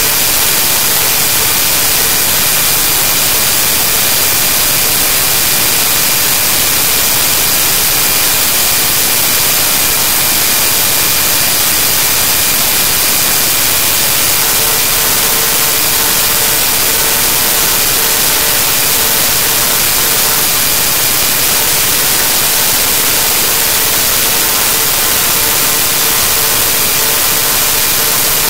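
Loud, unbroken hiss of static that never changes, its energy strongest in the high range, with a few faint steady tones under it: noise from a corrupted recording rather than any real sound.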